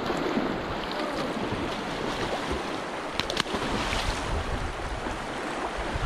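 Shallow, fast-flowing river water rushing and splashing close to the microphone, with a few sharp clicks about halfway through.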